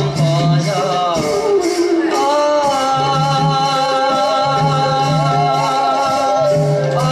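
A male voice sings a Borgeet in Raga Ahir in long, gliding held phrases, accompanied by a bamboo flute and a khol drum, with small hand cymbals keeping an even beat of about three strikes a second.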